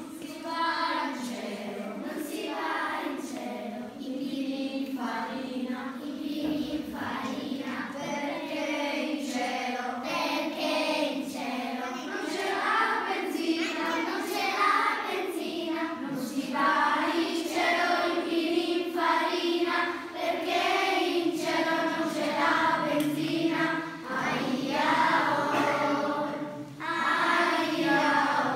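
Children's choir singing a song together, starting at once at the beginning.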